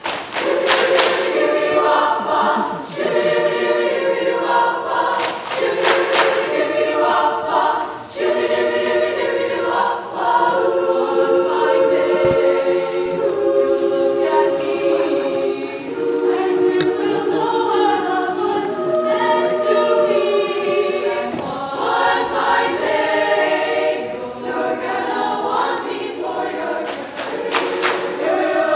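Girls' choir singing in several-voice harmony, starting abruptly after a moment of talk and carrying on loudly.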